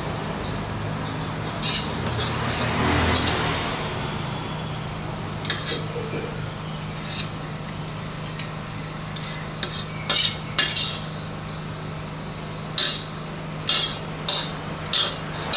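Spoon clinking and scraping against a metal bowl and a ceramic plate as chunky sambal is spooned out onto fried fish. There are sharp clinks throughout and a quick run of them near the end, over a steady low hum.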